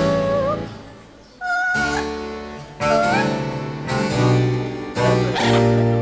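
Blue-fronted amazon parrot singing a series of short held notes about a second apart, some wavering and some sliding up at the end. Each note is doubled by keyboard chords struck underneath it.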